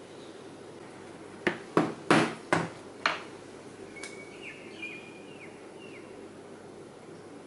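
A rubber mallet strikes a multi-prong stitching chisel five times in quick succession, driving it through Saffiano leather into a plastic cutting board to punch stitching holes.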